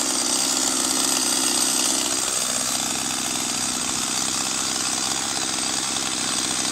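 Two-stroke gas chainsaw idling steadily, its note shifting once about two seconds in.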